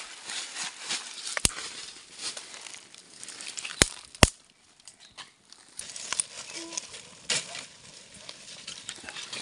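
Small fire of dry leaves and twigs crackling as it catches, with a handful of sharp snaps, two of them close together near the middle.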